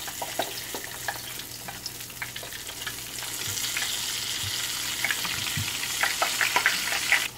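Flour-coated chicken pieces frying in hot oil: a steady sizzle that grows louder about three seconds in as more pieces go into the pan, with scattered short pops and clicks.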